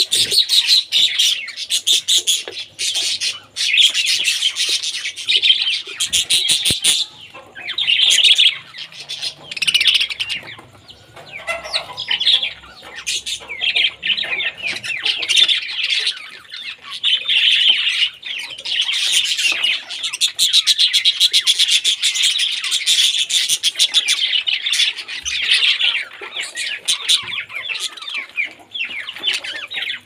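A cage of budgerigars chattering and chirping together: a dense, high, warbling twitter that runs on with only brief lulls.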